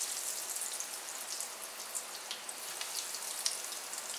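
Breaded chicken croquettes deep-frying in very hot oil: a steady sizzle with frequent sharp crackling pops.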